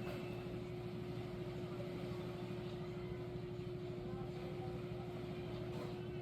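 A steady machine hum with one constant mid-low tone over a low rumble, unchanging throughout.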